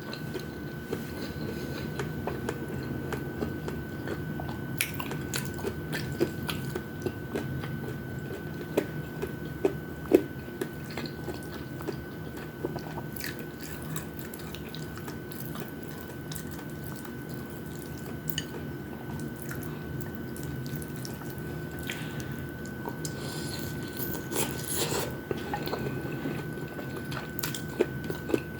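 Close-up chewing and biting of fried chicken wings and rice, with scattered short wet clicks and smacks, over a steady low hum and a faint steady high whine.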